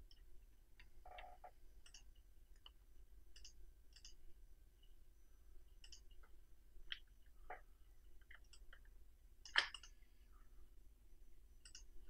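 Faint, scattered clicks of a computer mouse and keyboard, about a dozen spread unevenly, one louder click near the end, over a low steady room hum.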